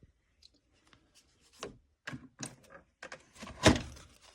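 Short clicks and light knocks of things being handled on a counter, with one sharper, louder knock near the end.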